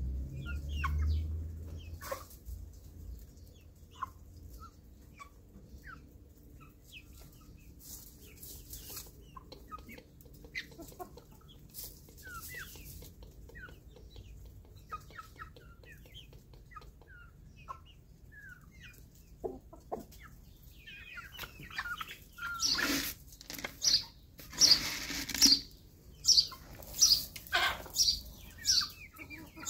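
Backyard chickens clucking softly with short scattered calls. About three-quarters of the way in, loud sharp bursts break in, settling near the end into an even run of them about three a second.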